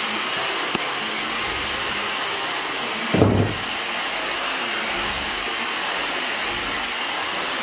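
Dyson cordless stick vacuum cleaner running steadily, a constant rush of air with a high motor whine. About three seconds in there is one brief low thud.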